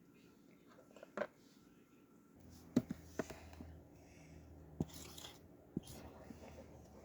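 Quiet close-miked clicks and taps from a whiteboard and marker being handled, a few sharp separate strokes with short scratchy rubs between them. A faint low hum comes in about two seconds in.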